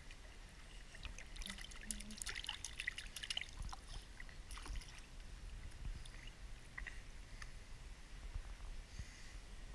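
Swimming-pool water lapping and trickling gently around a camera held at the surface, with scattered small splashes and crackles.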